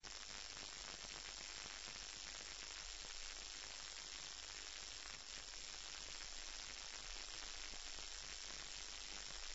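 Faint steady hiss of recording noise, with a low mains hum and a thin high whine underneath; no music is playing.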